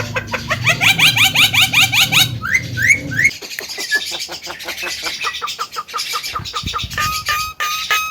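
Javan myna singing loudly. Fast runs of short repeated notes give way to a few rising whistles and a rapid chatter, then a string of clear repeated whistled notes near the end.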